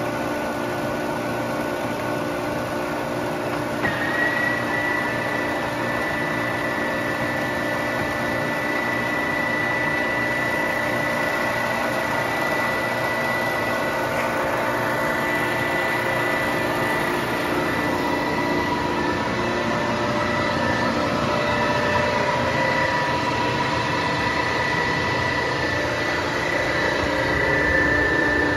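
Warner & Swasey No. 3 turret lathe running under its electric motor drive: a steady mechanical hum with several whining tones from the headstock gearing. About four seconds in there is a short click and a higher whine joins in and holds.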